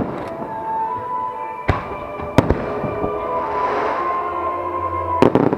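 Aerial fireworks going off in sharp bangs at irregular intervals, with a quick cluster of bursts near the end.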